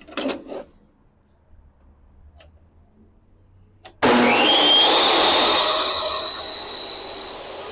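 A few light knocks, then a portable DeWalt table saw fitted with a 10-inch Diablo Steel Demon blade switched on about four seconds in: the motor starts suddenly and its whine rises in pitch as the blade spins up, then holds steady at full speed.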